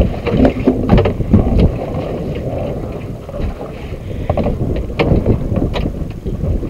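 Wind buffeting the microphone aboard a small open fishing boat, a steady low rumble, with a few sharp knocks.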